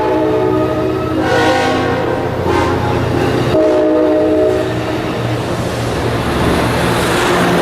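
Locomotive air horn sounding several blasts of a multi-note chord over the steady low rumble of a diesel locomotive's engine, with the running noise of a passing train growing louder in the second half.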